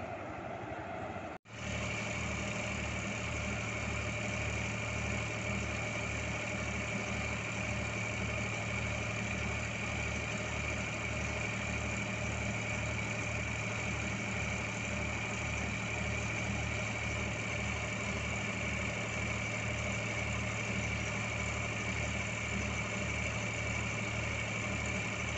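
Twin diesel locomotives idling at a standstill, a steady engine run with a low throb about twice a second and a steady high whine over it. The sound cuts out for an instant about a second and a half in, then the idling runs on unchanged.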